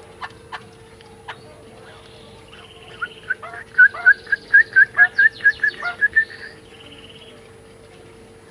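A songbird calling: a rapid run of about a dozen short, sharp notes, about four a second, starting about three seconds in and lasting some three seconds, with buzzy chatter before and after. A few short clicks come earlier.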